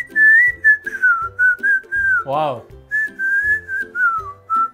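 Whistled melody over a steady rhythmic beat in film background music, the tune wandering gently up and down in pitch. About halfway through comes a short vocal cry that rises and falls.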